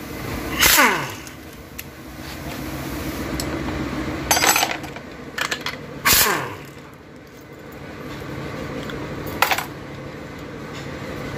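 A handheld power driver with a socket, run in four short bursts to spin out bolts on the valve body of a Toyota Soluna's automatic transmission. Each burst ends in a falling whine as the motor winds down.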